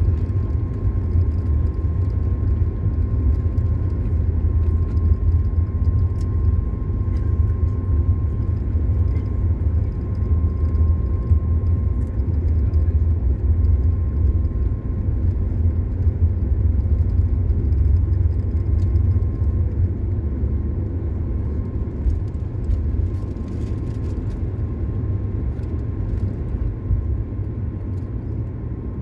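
Boeing 737 jet engines at takeoff thrust heard from inside the passenger cabin during the takeoff roll and liftoff: a steady heavy low rumble, with a faint whine that fades out about halfway and the noise easing slightly in the last few seconds.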